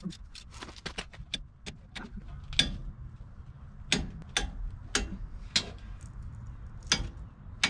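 Torque wrench ratcheting on the wheel hub's bolts as they are tightened to 75 ft-lb. A quick run of ratchet ticks comes first, then single, sharper clicks about half a second to a second apart.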